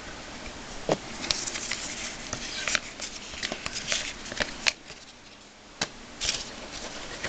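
Hockey trading cards being flipped through and handled by hand: a run of quick slides, scrapes and light taps, with a couple of sharper clicks near the end.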